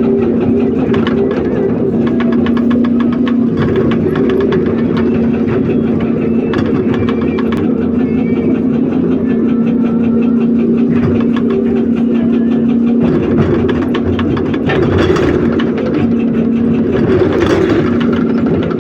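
Heavy hydraulic excavator's diesel engine running steadily under a rapid, even clatter of a hydraulic rock breaker hammering. The engine's steady note breaks off about two-thirds through, and two brief louder rushes follow near the end.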